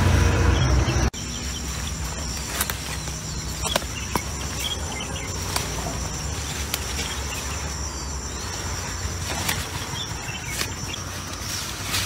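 Insects chirring steadily in a vegetable field, with scattered clicks and rustles as eggplant leaves brush past. A loud low rumble fills the first second and cuts off abruptly.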